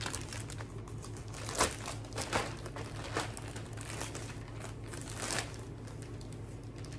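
Packaging crinkling and rustling in irregular bursts as returned clothing is handled and packed into a return bag.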